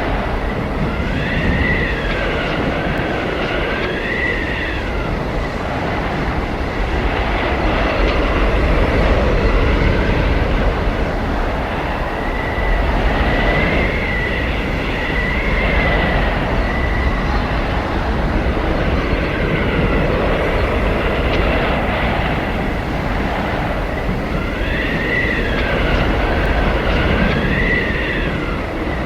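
Blizzard wind blowing hard: a steady rushing roar with a high whistling howl that bends up and down in pitch, swelling in three spells, near the start, in the middle and near the end.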